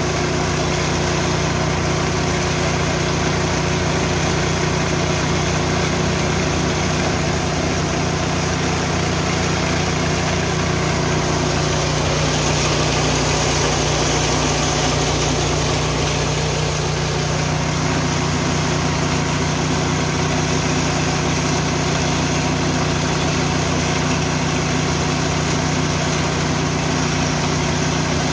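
Richi KD 350 mini rice and corn mill running steadily, with an engine-like hum at a constant pitch under an even rushing noise.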